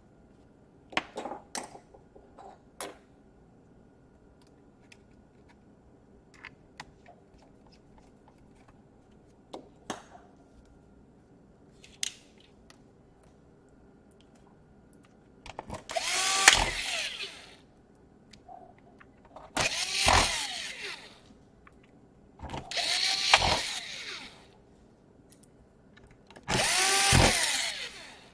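Power screwdriver driving screws into a laptop's case: four short runs of the motor, each speeding up and winding down, in the second half. Before them come a few light clicks of parts being handled.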